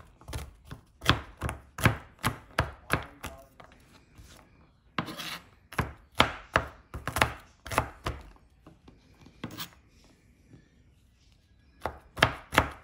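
Chef's knife chopping peeled garlic cloves on a plastic cutting board: sharp knocks of the blade on the board, about two to three a second, in runs broken by short pauses.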